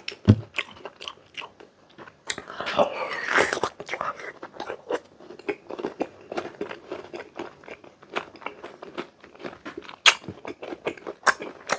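Close-up crunching and chewing of crisp raw green mango, with many sharp bites and crunches and wet mouth sounds, busiest about three seconds in.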